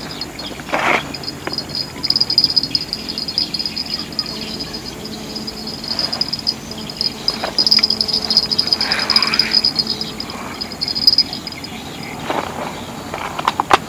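Insects trilling in a steady high-pitched chorus that swells and fades, with a few short rustles and clicks in between.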